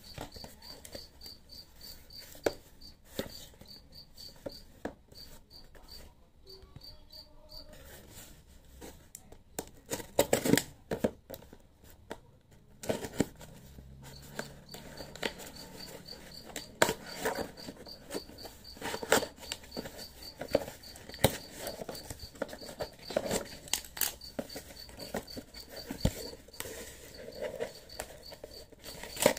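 A cardboard shipping box being cut and pried open with a knife blade and fingers: the blade scrapes over the tape and cardboard, and the flaps rustle and tear in irregular bursts. Behind it a high chirp repeats evenly, two or three times a second, stopping for a few seconds partway through.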